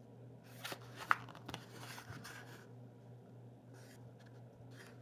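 Faint rustling and clicking of a plastic blister pack on its card backing as it is handled and turned over, with a few sharp clicks in the first half and a low steady hum underneath.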